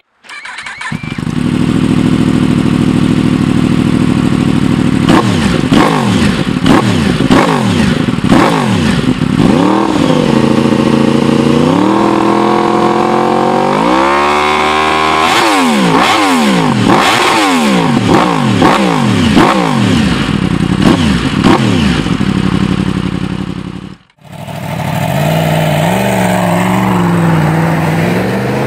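Yamaha YZF-R1 crossplane inline-four engine revved in neutral on a rear stand. It idles, then is blipped up and down in quick throttle stabs with one long climb in revs, then settles back to idle. After a cut near the end, a motorcycle approaches along a road with its engine note rising.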